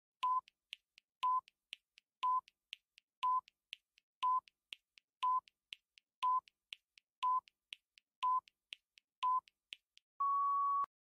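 Quiz countdown-timer sound effect: ten short electronic beeps, one a second, with a softer tick between each, ending in a longer, slightly higher beep that signals time is up.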